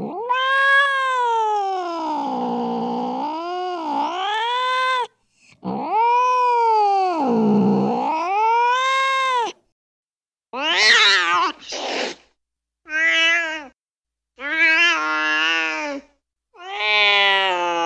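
Domestic cat yowling and meowing: two long drawn-out calls that dip low and rise again in pitch, then four short meows with dead silence between them, and another long call starting near the end.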